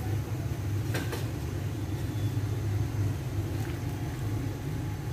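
Steady low rumble of a gas stove burner heating a steel pot of water with bok choy in it. Light clicks of a metal utensil against the pot about a second in and again near four seconds.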